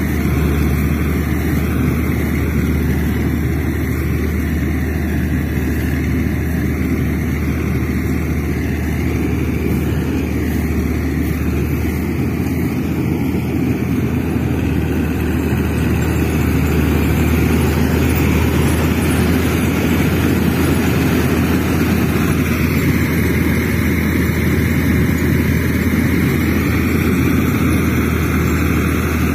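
Steady, unbroken low engine drone, like a heavy vehicle running, with no change in pace.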